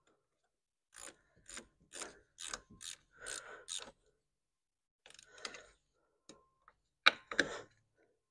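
Hand ratchet clicking in short runs as a nut on the battery hold-down is tightened: about seven strokes at roughly two a second, a shorter run, then two sharper, louder clacks near the end.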